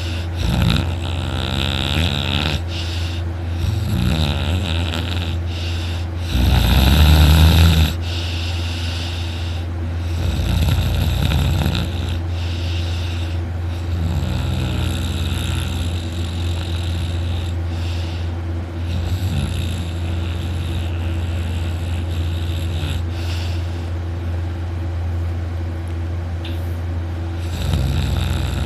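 A young man's very loud snoring in deep sleep, one snore every few seconds, the loudest about seven seconds in, over a steady low hum.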